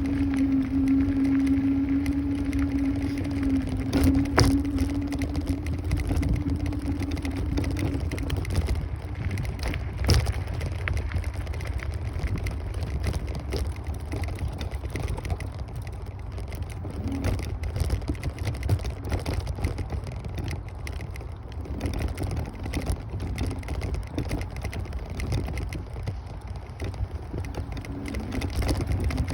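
Kaabo Wolf Warrior 11 Pro electric scooter being ridden: the dual hub motors give a steady whine that fades after about eight seconds and comes back briefly twice later. Underneath is constant wind buffeting on the microphone and road rumble, with two sharp knocks.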